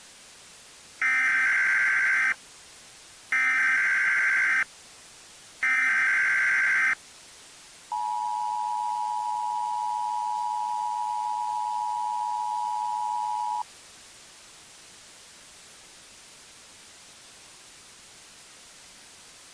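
Emergency Alert System tones: three short bursts of the SAME digital header, the data burst that encodes an alert, followed by the steady two-tone attention signal held for about six seconds, which announces that an emergency message follows. A steady hiss runs underneath and remains after the tones stop.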